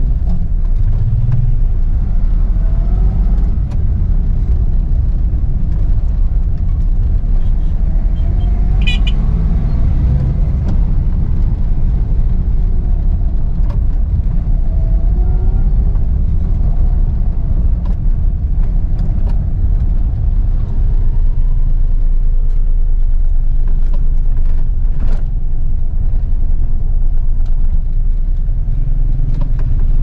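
Inside the cabin of a Suzuki Mehran, a small three-cylinder hatchback, driving slowly in traffic: a steady low rumble of engine and road noise, with engine notes rising and falling. A short high-pitched horn toot sounds about nine seconds in.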